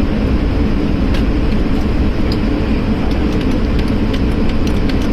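Steady cabin noise of an Airbus A220-300 airliner: an even, loud rumble of its Pratt & Whitney PW1500G geared turbofan engines and the airflow around the fuselage.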